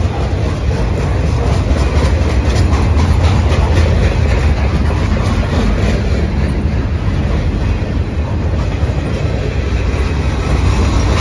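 Freight cars of a long manifest train rolling past: a steady rumble of steel wheels on rail, with clicking from the wheels over the track.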